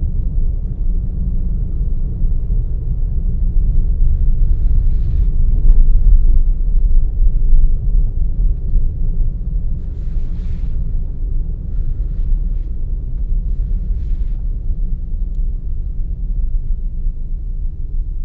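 Steady low rumble of a car driving, heard from inside the car, swelling a little a few seconds in, with a few faint brief hisses now and then.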